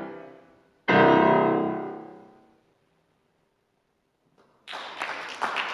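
C. Bechstein grand piano striking a final loud chord about a second in and letting it ring away to silence. After a pause of a couple of seconds, applause starts near the end.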